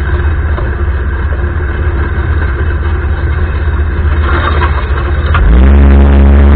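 Arora Herkul ATV's single-cylinder four-stroke engine running, a rough, uneven sound. Electronic music comes back in about five and a half seconds in.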